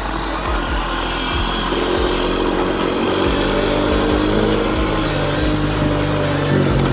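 Honda Dream 100's small single-cylinder four-stroke engine running as the motorcycle is ridden, its note rising a little about two seconds in as it picks up speed.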